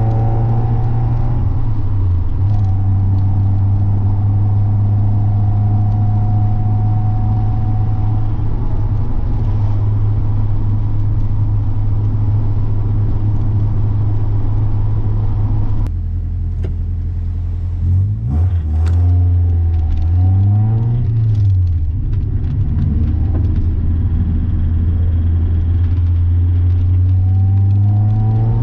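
Mazda Miata's four-cylinder engine and exhaust under way, holding steady revs at cruise. About halfway the throttle comes off and the revs fall and rise several times through gear changes, then settle again and climb near the end.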